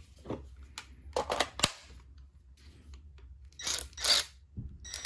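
Hands handling a Ryobi P344 cordless ratchet and its ONE+ battery pack: a few sharp plastic clicks and knocks, then short scraping, rustling sounds near the end.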